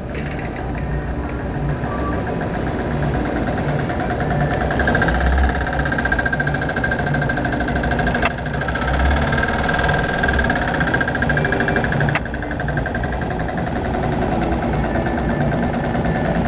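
Sewing machine running with a fast, even needle clatter, a little louder through the middle, and two sharp clicks partway through.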